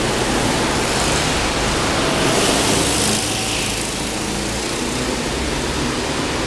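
Go-kart engines running as several karts lap an indoor track, echoing in a large concrete hall; a steady engine din that swells a little about two to three seconds in.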